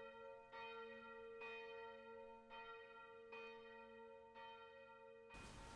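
A single church bell tolling faintly, struck about once a second, each stroke ringing on into the next; it cuts off suddenly near the end.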